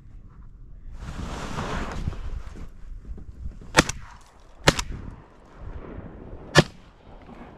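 Three shotgun shots from a Winchester SX4 12-gauge semi-automatic shotgun. The first two come about a second apart and the third about two seconds later. Before them there is a second-long rustle.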